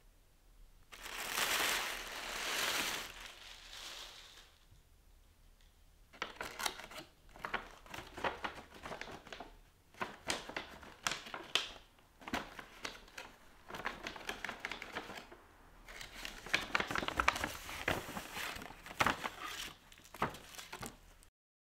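Gift tissue paper crinkling and rustling as a present is unwrapped. There is a soft rush about a second in, then irregular crackles from about six seconds on.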